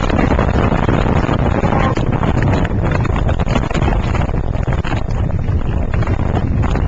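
Tropical-storm wind buffeting the microphone in a loud, steady rumble, mixed with the wash of storm waves on the river.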